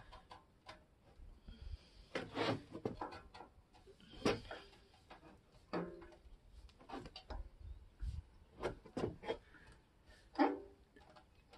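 Scattered metal clinks, rubbing and scraping as the stock muffler of a 2023 Indian Chief Bobber Dark Horse is wiggled up, down and sideways by hand to work it loose at its mounting bracket, where a washer is stuck. A handful of sharper knocks stand out among the smaller clicks.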